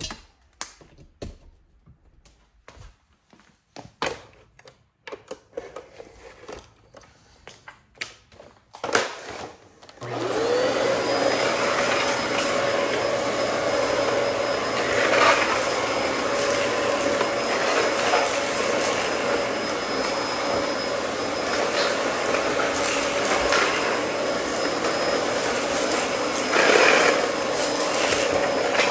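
Scattered clicks and knocks, then about ten seconds in a Dyson DC14 upright vacuum switches on, its motor spinning up to a steady whine. It runs as it is pushed over a bare concrete floor strewn with debris, with two brief louder rattles as debris is picked up.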